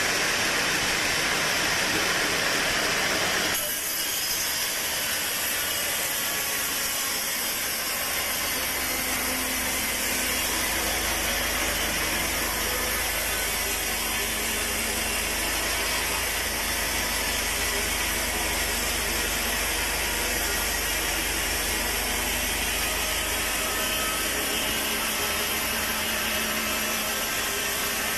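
Sawmill saw running and cutting through a log, a dense steady noise; the sound shifts about three and a half seconds in, and a steady low hum joins it a few seconds later.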